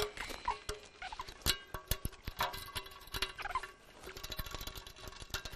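Irregular clicks, knocks and metallic clinks of drum-kit hardware being handled and adjusted, with a few short squeaks, as a bass drum is reconfigured to be played as a hand-played floor tom.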